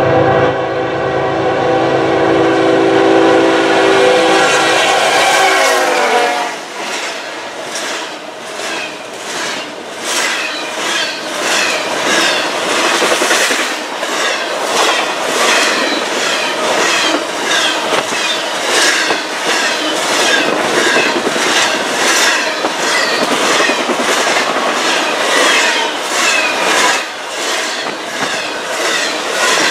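Freight locomotive's air horn sounding a long chord of several notes, which drops in pitch as the locomotive passes about six seconds in. Then an intermodal freight train's cars roll by, wheels clicking over the rail joints at about two clicks a second over a steady rumble.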